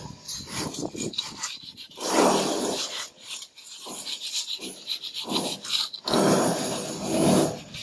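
Mason's trowel scraping across mortar in a series of long strokes, each about a second long with short pauses between.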